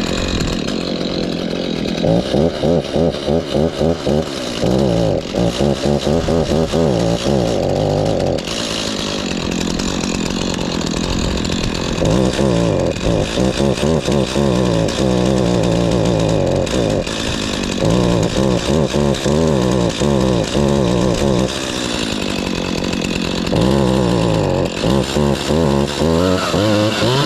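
Stihl MS 251 C two-stroke chainsaw warming up just after a cold start. It runs steadily between four spells of throttle blipping, the engine note rising and falling quickly in each.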